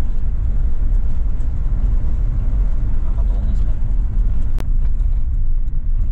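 Van cabin noise while driving at road speed: a steady low rumble of engine and tyres, with a single sharp click about four and a half seconds in.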